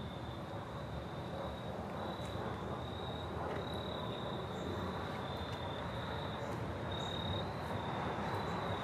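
Insects trilling steadily at one high pitch, over a steady low outdoor rumble.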